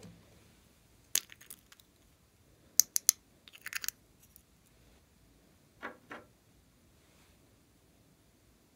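Small plastic cosmetic pots clicking and tapping as they are handled and their lids opened. There is a sharp click about a second in, three quick clicks and a short rattle near three to four seconds, and two softer knocks near six seconds.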